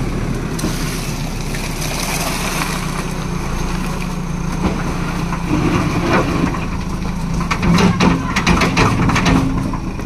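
JCB backhoe loader's diesel engine running steadily while its front loader bucket pushes through wet concrete mix of cement, sand and stone chips. From about seven and a half seconds in comes a run of crunching and scraping as the bucket drags through the gravelly mix.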